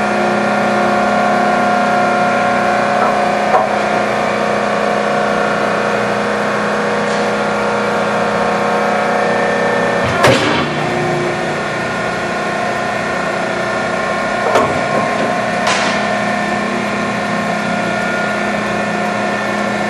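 Piqua Model 30 vertical baler running under power: its three-phase electric motor and hydraulic pump hum steadily, with a few sharp clunks, the loudest about halfway through.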